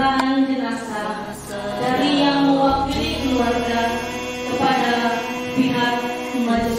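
A Christian hymn to Jesus sung by a voice over instrumental accompaniment, with held low bass notes that change a few times.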